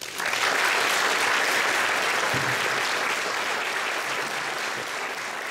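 Audience applause breaking out all at once at the end of a choral piece, then slowly tapering off.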